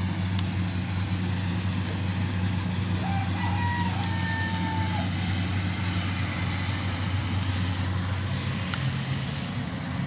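Steady low mechanical hum of motors running, with no change in pitch.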